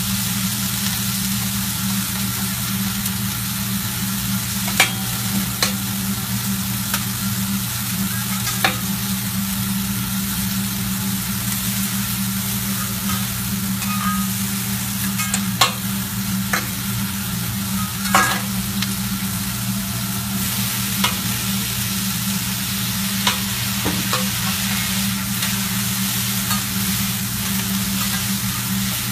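Meat and vegetables sizzling steadily on a teppanyaki flat-top griddle over a low steady hum, with a sharp metal clink of the chef's spatulas on the griddle every few seconds.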